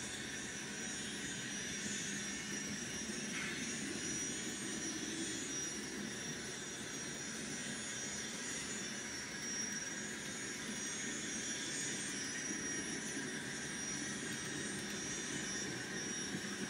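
Sound decoder of an N scale Union Pacific GTEL gas-turbine locomotive model running, playing a steady, jet-like gas-turbine whine.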